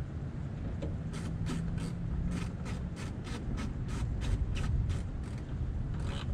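Sharp mechanical clicks repeating about three times a second as hand tools work on a Volvo VNL semi's headlight housing mounting, over a steady low rumble.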